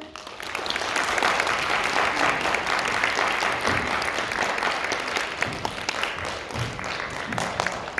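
Audience applauding, a steady patter of many hands clapping that thins out toward the end.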